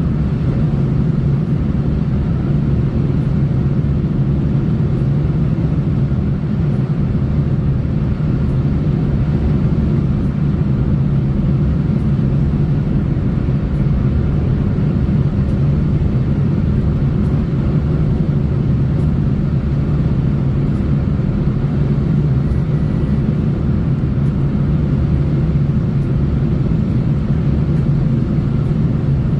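Steady low rumble of a car driving along a road: tyre and road noise with the engine underneath, unchanging throughout.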